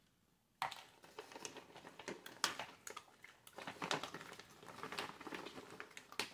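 Two dogs eating treats, with irregular crunching and clicking, mixed with the crinkle of a paper treat bag being handled. It starts about half a second in.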